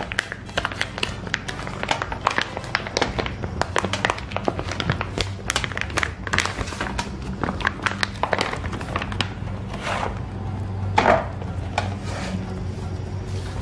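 Plastic packaging around a raw rack of pork ribs crinkling and crackling as it is handled and pulled open, in a dense run of small irregular crackles, with one heavier thump near the end.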